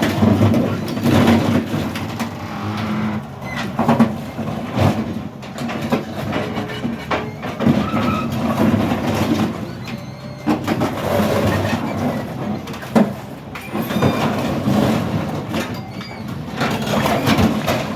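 Heavy machinery's engine running under load, with loud metal clanks, bangs and scraping as a car body is torn apart.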